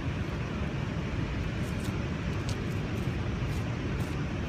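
Steady outdoor background noise with a low rumble, with two faint ticks in the second half.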